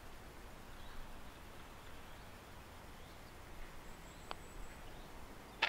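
Quiet outdoor ambience with faint bird calls, then a single sharp click near the end: a putter striking a golf ball on a short par putt.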